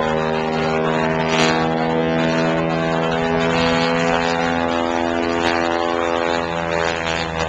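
Piston-engine propeller airplane droning steadily, its pitch holding nearly constant.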